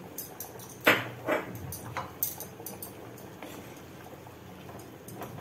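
Wooden spatula stirring thick mutton curry in a cooking pot, knocking and scraping against the pot a few times in the first two seconds, loudest about a second in, then a low steady background.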